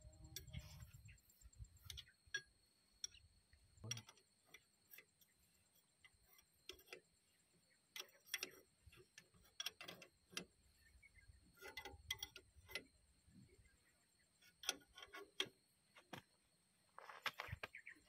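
Faint, irregular clicks and taps of hand tools on metal parts, dozens of short sharp strokes at uneven spacing.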